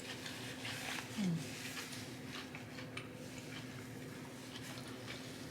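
Faint, close-up chewing and wet mouth sounds of a person eating, with a brief low falling "mm" about a second in, over a steady low hum.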